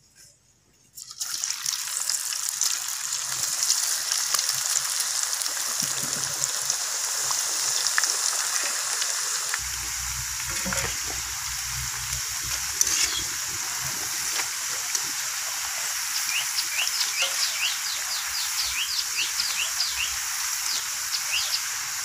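Freshly added, pale raw potato slices deep-frying in hot oil in a wok: a steady, dense sizzle that starts about a second in. Short high chirps come and go near the end.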